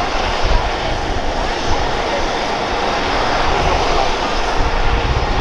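Airbus EC135 P2+ helicopter running steadily on the ground with its main rotor turning: the sound of its twin Pratt & Whitney PW206B turboshaft engines and rotor, loud and unchanging.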